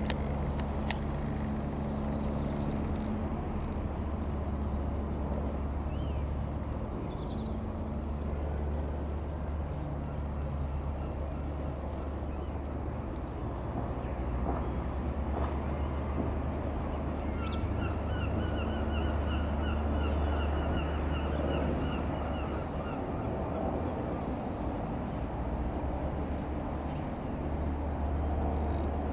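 Birds calling over a steady, low, distant engine drone. Partway through, a rapid run of chattering notes lasts several seconds, with thin high chirps scattered throughout.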